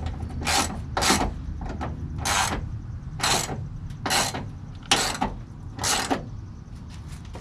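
Hand socket ratchet clicking in about seven short bursts, roughly one a second, as a 10 mm fender bolt is run down.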